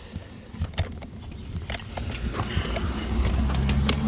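Irregular light clicks and knocks from handling tools and parts, with a low motor-vehicle engine hum growing louder in the second half.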